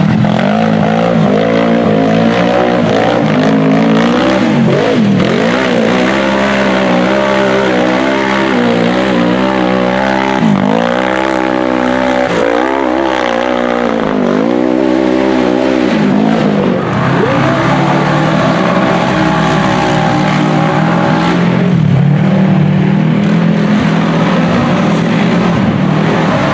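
Off-road rock bouncer buggy engine revving hard under race load, its pitch climbing and dropping again and again as the throttle is worked on a dirt hill climb, with stretches of steady high-rev running near the start and end.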